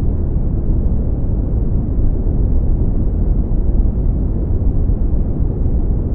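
Deep, bass-boosted brown noise: a steady low rumbling hiss with almost no treble, unchanging throughout.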